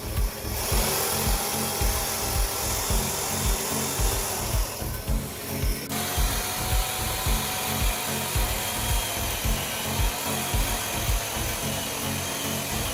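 A power tool working wood, with a steady noisy hiss and a faint held whine that changes abruptly about six seconds in. Background music with a steady beat plays underneath.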